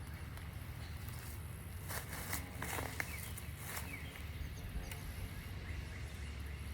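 Outdoor ambience by a pond: a steady low rumble with handling and rustling noises, a few short clicks, and some brief high falling chirps.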